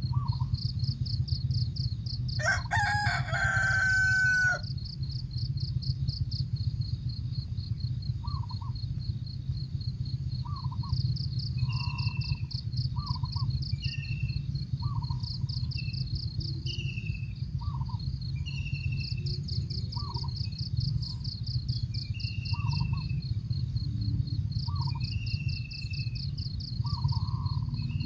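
A rooster crows once, about two seconds in, over a steady pulsing insect trill. Short bird calls repeat about once a second from several birds, over a low steady hum.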